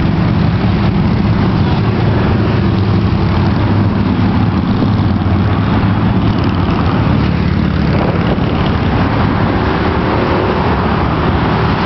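Steady highway road noise from a moving car, with the rumble of nearby traffic.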